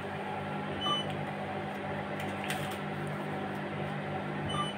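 ATM button beeps: a short electronic beep about a second in and another near the end as the screen options are pressed, over a steady low hum.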